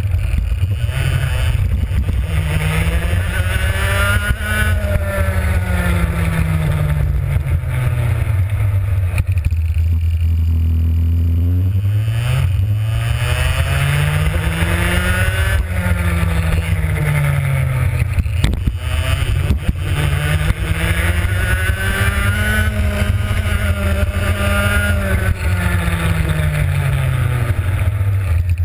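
Kart's two-stroke engine driven hard and heard from a camera mounted on the kart. Its pitch climbs, peaks and falls three times as the kart accelerates down straights and slows for corners, over a steady low rumble.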